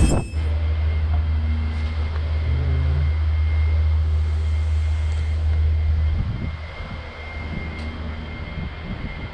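Helicopter in flight heard from the cabin: a steady low drone with a thin high whine over it. The drone drops away about six seconds in, leaving a quieter mechanical hum.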